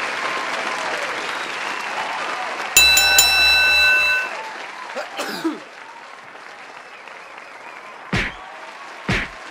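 Crowd cheering and applauding, with a loud bell-like ring about three seconds in that lasts over a second before the crowd dies down. Then comes a falling whoosh, and two sharp hits about a second apart near the end.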